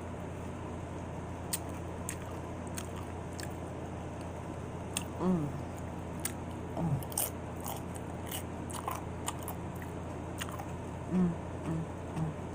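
Close-up chewing and crunching of chili cheese nachos (tortilla chips), with sharp crunches scattered throughout and a few brief hums from the eater around the middle and near the end.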